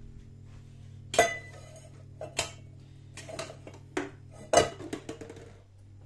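Cups and glasses clinking as they are handled and set down: about seven sharp clinks with short ringing, over a steady low hum.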